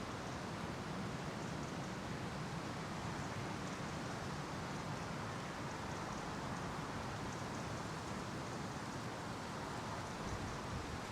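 Wind blowing through leafless trees, a steady rushing noise mixed with the distant hum of city traffic.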